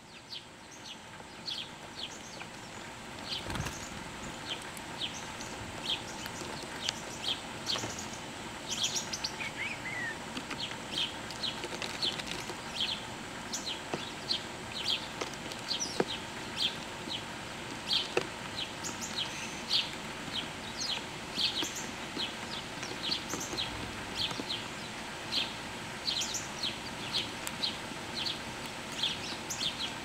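Many small birds chirping, a steady stream of short high chirps overlapping one another, fading in over the first few seconds.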